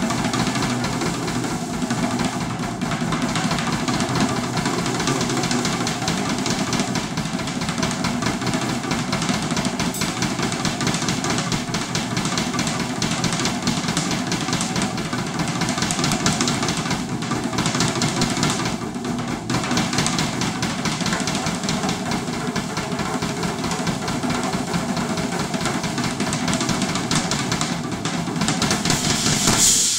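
Yamaha drum kit played solo: a dense, continuous pattern of snare, tom and bass drum strokes under ringing cymbals, with a loud cymbal crash near the end.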